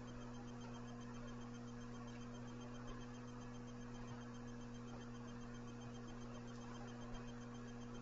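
Steady low electrical hum with faint hiss under it, and a couple of tiny soft ticks: quiet room tone picked up by the microphone.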